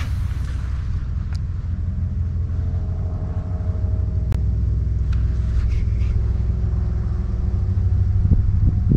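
A steady low rumble with a motor-like hum, unchanging in level, with a few faint clicks.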